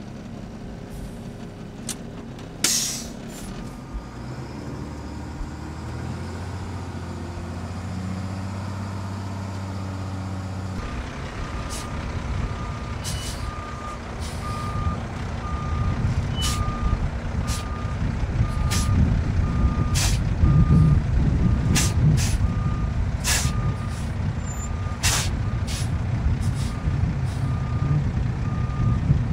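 A hydroseeding tank truck's engine drones, heard from inside the cab and rising in pitch, then, after a cut about eleven seconds in, rumbles louder from outside as the truck reverses, its backup alarm beeping about once a second, with scattered sharp clicks.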